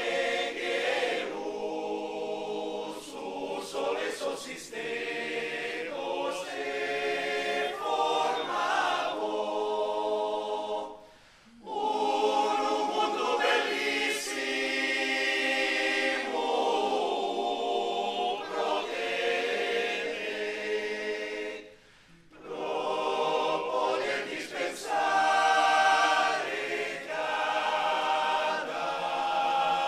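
Male voice choir singing a cappella in several parts, falling silent briefly twice between phrases.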